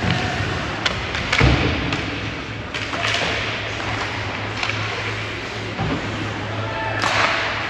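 Ice hockey game sounds in an arena: sharp clacks and thuds of sticks and puck against the boards, and hissing skate scrapes around three seconds in and again near the end, over a steady low hum.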